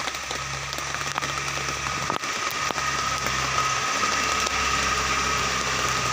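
Steady heavy rain falling on a road and foliage, under the low hum of a Mitsubishi L300 van's engine as it climbs closer, getting slightly louder. A thin steady high tone runs through it.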